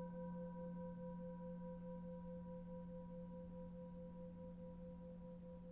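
Faint, steady meditation drone of a few held pure tones, one of them pulsing gently, fading slightly, with a singing-bowl-like ring.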